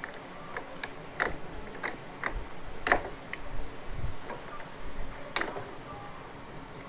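Irregular sharp metallic clicks and taps of a tool working on the four-slot clutch nut, as it is seated on the clutch hub and tightened.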